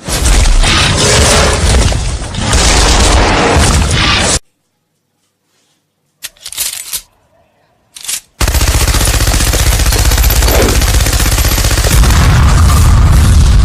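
Machine-gun fire sound effect: a long, loud stretch of rapid automatic fire, then a gap with a few short bursts, then another long stretch of rapid fire from about eight seconds in.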